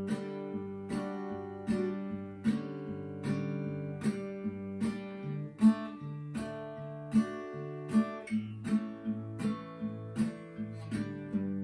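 Steel-string acoustic guitar played alone in a steady bass-and-strum pattern: a picked bass note followed by a downward strum across the higher strings, with chords ringing between the strokes.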